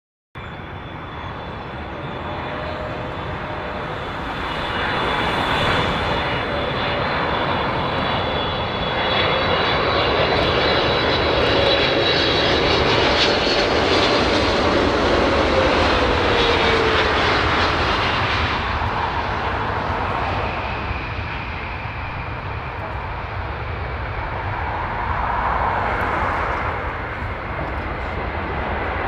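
Boeing 777F freighter's twin GE90 turbofans passing by: jet roar with a steady high fan whine that builds to its loudest about halfway through, a lower tone sliding down in pitch as it passes, then easing off.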